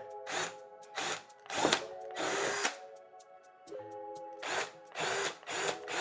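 Cordless drill with a 1/4-inch bit, set to hammer mode, drilling in about seven short bursts of under a second each. Steady background music underneath.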